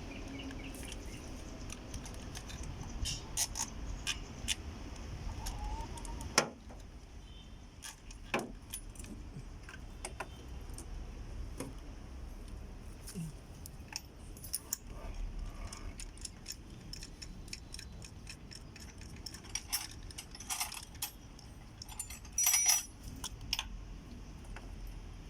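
Metal hand tools and parts clinking and rattling as they are handled during engine work: scattered sharp clicks, one loud clink about six seconds in, and a jingling cluster near the end.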